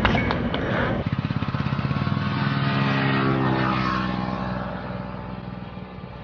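An engine running with a rapid, even pulse, growing fainter over the last two seconds.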